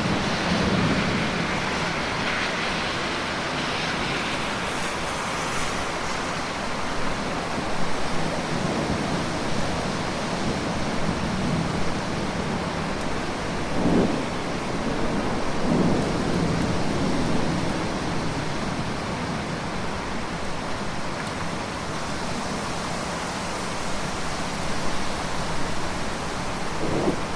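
Steady rainfall, an even hiss with a few low rumbles swelling up at the start, twice about halfway through, and near the end.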